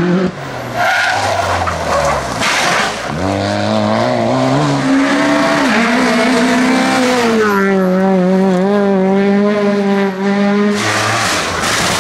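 Rally car engines at full attack on a tarmac stage, one car after another, each engine note climbing and dropping through gear changes, then one note held from about seven to eleven seconds.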